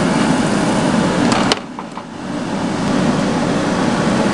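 Diced bell peppers cooking in a non-stick frying pan on a stove: a steady sizzling hiss, with one sharp click about a second and a half in, after which the sound drops briefly and then builds back up.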